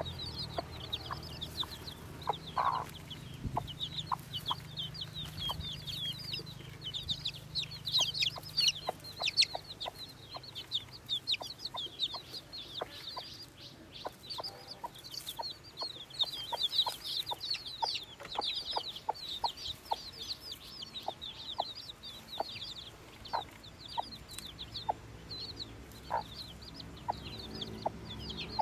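Newly hatched chicks peeping nonstop in a rapid stream of short, high cheeps.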